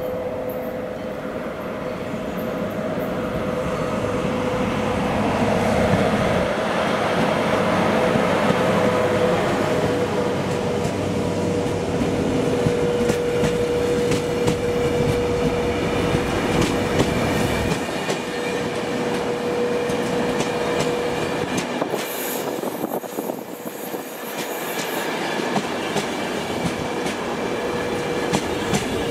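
HŽ series 1142 electric locomotive and its passenger coaches passing close by. The run grows louder over the first several seconds, and the wheels rumble and click rhythmically over the rail joints as the coaches roll past.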